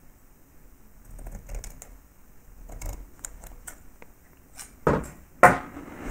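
Light clicking, tapping and rustling of hands working on a rebuildable vape tank's deck while wicking cotton into the coil. Two louder short sounds come about five seconds in.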